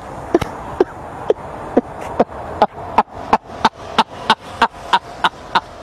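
A man laughing hard in short, sharp bursts that quicken from about two a second to about three a second.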